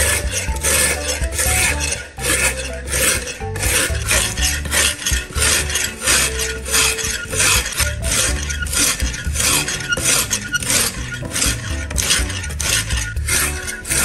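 Wet whetstone rubbed back and forth along a steel knife blade's edge, a rasping scrape about twice a second. Background music with a steady bass runs underneath.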